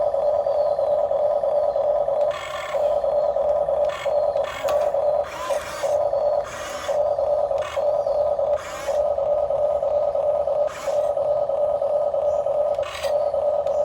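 Remote-control model excavator running: a steady electric-motor whine, broken about nine times by short bursts of gear rattle and scraping as the machine moves.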